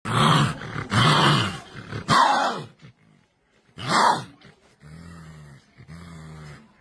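An animal gives four loud, harsh calls about a second apart, each with a bending pitch. About five seconds in they give way to a lower, quieter, steady pitched growl.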